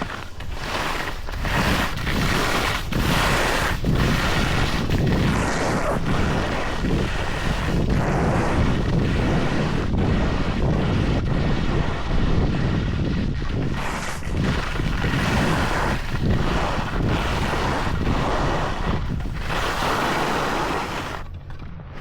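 Wind rushing over the microphone and skis scraping across snow on a fast downhill ski run, with repeated short scraping surges, easing near the end.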